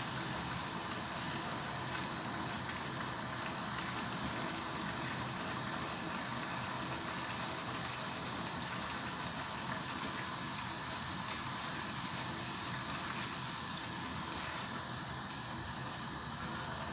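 Steady simmering and sizzling of vegetables in a little broth in a wok, with a few faint taps and scrapes of the spatula.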